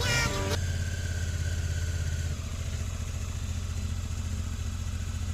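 Motorcycle engine idling steadily with an even low rumble; a faint high whine over it stops about two seconds in.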